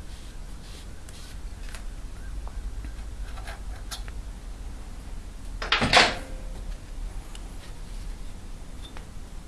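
Aluminium drill-guide block being lifted off a motorcycle cylinder head by hand: a few light metal clicks, then one louder metallic clunk about six seconds in with a brief ring.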